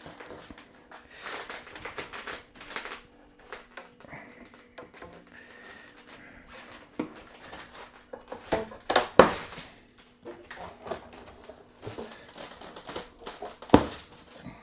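Plastic wrapping and packaging being pulled and crinkled off an appliance, irregular rustling with scattered clicks and a few sharp knocks, the loudest about nine seconds in and again near the end.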